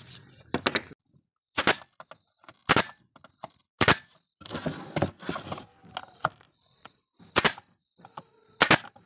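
Brad nailer firing nails into wooden boards: about six sharp shots, roughly a second apart. In the middle there is a pause filled with scraping and handling noise.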